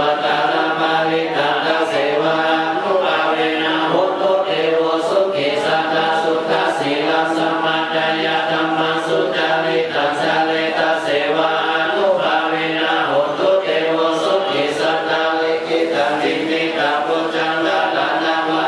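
A group of voices chanting together in a steady, unbroken Buddhist prayer chant.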